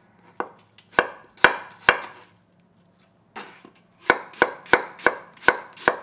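Chef's knife thinly slicing a peeled apple on a wooden cutting board, the blade knocking on the board with each stroke: four strokes in the first two seconds, a pause, then a quicker run of about six near the end.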